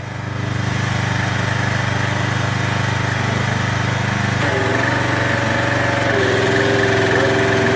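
Craftsman 2700 psi pressure washer's Briggs & Stratton 175cc OHV engine running steadily. About four and a half seconds in the wand trigger is squeezed and the engine note changes as the pump starts spraying, with a steady whine joining a little later: the unloader switching the pump from bypass to pressure as it should.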